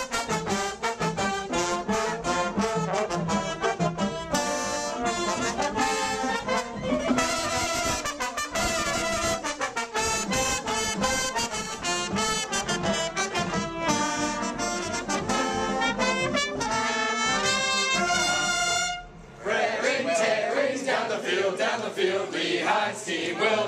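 A small college marching band's brass and woodwinds (saxophone, trumpets, clarinet) playing a lively tune at close range in a small room. About 19 seconds in the music breaks off and gives way to a group of voices singing together.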